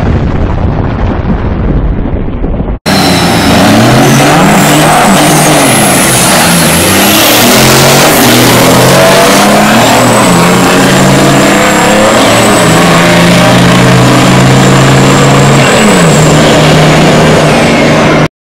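Two diesel trucks accelerating hard down a drag strip: a deep rumble at first, then after a sudden cut about three seconds in, engine notes that climb and drop over and over as they shift through the gears, with a thin high whistle above them. The sound cuts off abruptly near the end.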